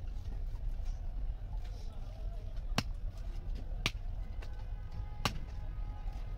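Knife chopping through fish fillet onto a wooden log chopping block: three sharp knocks, roughly a second or so apart, in the second half, over a steady low rumble.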